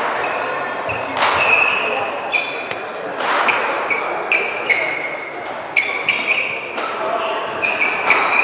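Badminton rally: court shoes squeak sharply and often on the hall floor, and a racket cracks against the shuttlecock about every two seconds.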